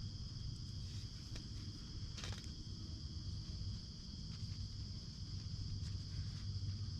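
Steady chorus of crickets, a continuous high trill, with a low rumble and a few soft clicks underneath.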